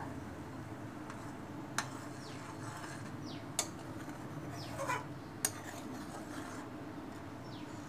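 Steel ladle stirring simmering coconut cream in a steel kadai, clinking against the pan four times over a steady low bubbling. The cream is being boiled down so that the coconut oil separates.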